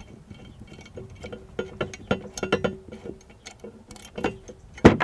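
Small metal clicks and clinks as a header-height sensor and its steel mounting bracket are handled and its cover and harness bolt worked loose, some clinks ringing briefly, with a louder knock near the end.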